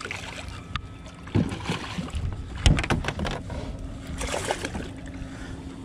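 Largemouth bass splashing at the side of a boat as it is landed, with several sharp knocks against the boat, the loudest a little before halfway. A low steady hum comes in under it.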